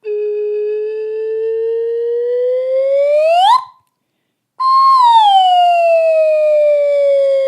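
Whistle-like sound effect: a pitched tone climbs slowly, then sweeps sharply upward and cuts off about three and a half seconds in; after a short gap it comes back high and glides slowly down.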